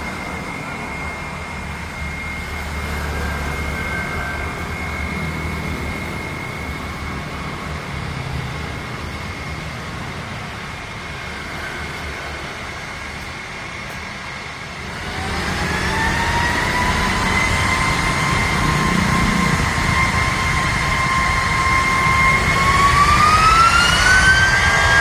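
Jet airliner's turbofan engines spooling up for takeoff: a steady whine, then about fifteen seconds in a louder whine rises in pitch, levels off, and climbs again near the end as takeoff thrust is applied.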